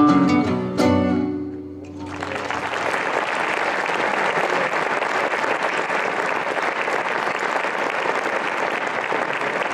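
Two acoustic guitars play the last notes of a song and strike a final chord that rings out and fades. About two seconds in, the audience breaks into applause that continues steadily.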